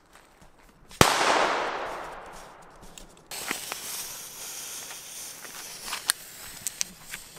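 A single sharp firework bang about a second in, its echo dying away over two seconds. Then the steady hiss of burning ground fountains with scattered crackles and pops.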